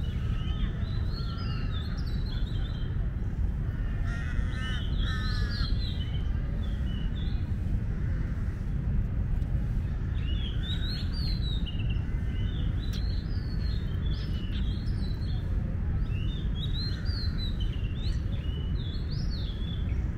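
Birds chirping in repeated bursts of quick, high twittering, over a steady low rumble.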